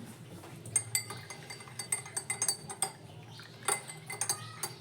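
A metal spoon clinking against a dish in repeated, uneven strikes with a short ring after each, as ingredients are stirred or mixed.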